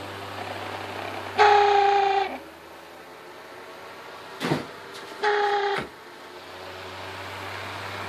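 A WeatherWorks box fan's electric motor humming, broken by loud, steady-pitched squeals from its worn shaft bearings. The first squeal comes about a second and a half in and lasts about a second. A short sliding squeak follows about four and a half seconds in, then a second, shorter squeal.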